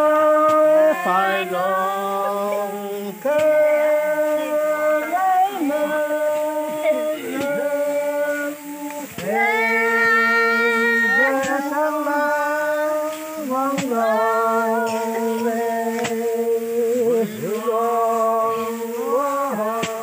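Voices singing unaccompanied in long held notes that slide from one pitch to the next, in phrases a few seconds long.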